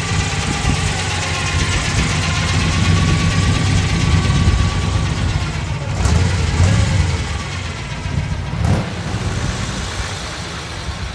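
The engine of a lowered vintage pickup truck rumbles at low speed as the truck rolls past. The sound swells in the middle and then eases off. Two brief knocks come about six and nine seconds in.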